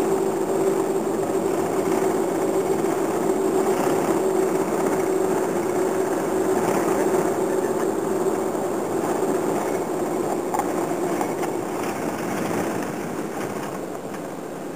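Cabin noise of a moving bus: steady engine drone and road rumble, with a low hum that fades out about ten seconds in, and the noise easing off near the end.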